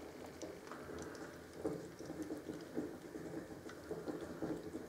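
A cat eating soft paste from a ceramic bowl: faint, irregular wet smacking and licking.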